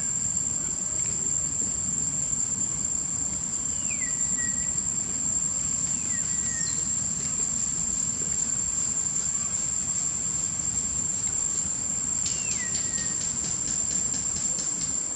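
Steady high-pitched drone of insects, over a low background rumble. A few short high calls fall in pitch and level off, and near the end the drone pulses rapidly for a couple of seconds.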